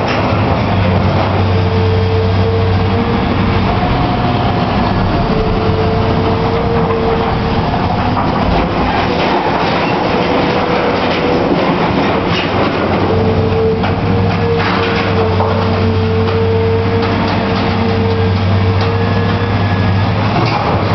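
Caterpillar 322B L hydraulic excavator running steadily, with a hydraulic whine that comes and goes as the boom and bucket move. Around the middle come clanks and scrapes of corrugated sheet-metal debris as the bucket digs into the pile.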